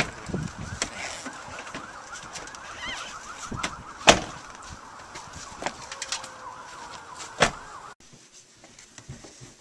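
SUV doors opening and shutting, with two loud thuds, about four seconds in and again about seven and a half seconds in, over a steady warbling high tone; the sound drops away suddenly near the end.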